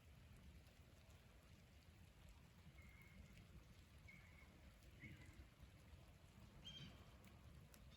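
Near silence: a faint low rumble of outdoor air, with a few faint short high chirps about three, four, five and seven seconds in.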